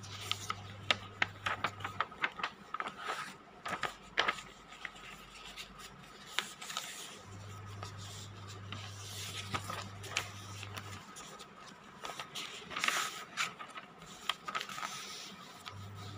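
Paper notebook pages being turned and handled: a run of sharp crackles in the first few seconds, then several softer rustling swishes.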